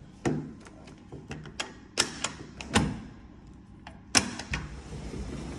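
Sliding glass door being unlatched and opened: a string of sharp clicks and clunks from the handle latch and frame, with a louder knock about four seconds in. After that a steady hiss of wind comes in as the door opens.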